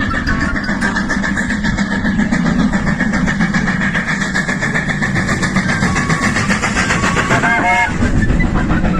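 A running train: steady rumble with a fast, even clatter, and a short rising whistle-like call about seven and a half seconds in.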